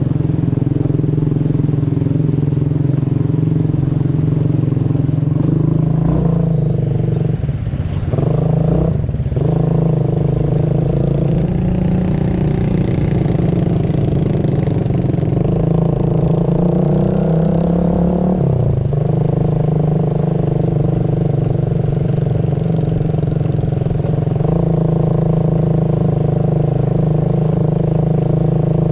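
A vehicle engine running close by at a steady pace. Its pitch shifts unevenly about seven to nine seconds in, then drops briefly about nineteen seconds in as the engine speed changes.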